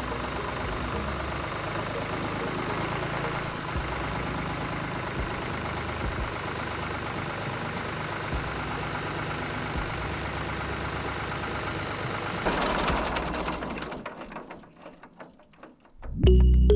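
Tractor engine running steadily. It swells briefly about twelve seconds in, then fades out over the next few seconds, and music starts just before the end.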